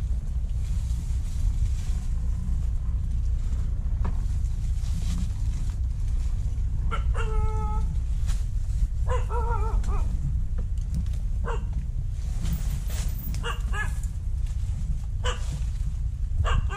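A dog barking and whining several times, the calls short and spread from about seven seconds in, some held on one pitch and some wavering, over a steady low rumble.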